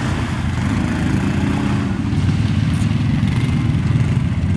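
Quad bike (ATV) engines running steadily at low revs as the quads ride slowly through mud.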